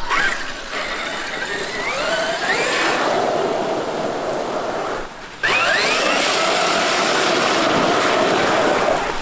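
Traxxas X-Maxx RC monster truck's 1200XL brushless electric motor whining as it accelerates, the pitch rising twice, over a steady rush of water spray as the truck plows through a puddle. The sound drops out briefly about five seconds in.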